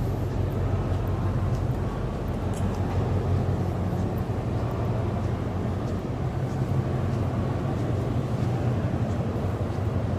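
Steady low mechanical drone with a constant hum, with a few faint ticks and knocks over it.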